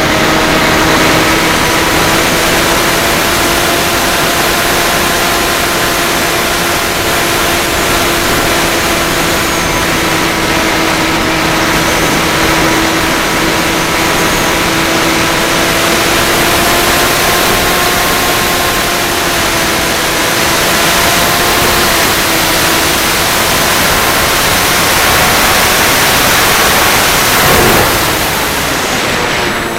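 FPV drone motors and propellers running steadily, giving a whine at a few held pitches that drift slightly, under a heavy rushing noise.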